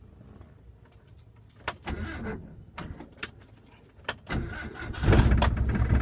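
Keys jingle and click at the ignition; then a vintage car's engine is started and catches about five seconds in, settling into a loud, low idle. The owner calls it a rough idle with strong vibration and blames dirty spark plugs that have been in for months.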